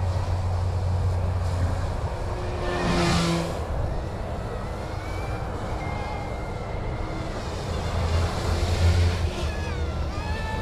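Battery-powered YX UH-60 Black Hawk scale RC helicopter in flight: a steady low rotor hum with a faint motor whine that rises and falls in pitch as it is thrown around at high head speed. A brief rushing swell comes about three seconds in.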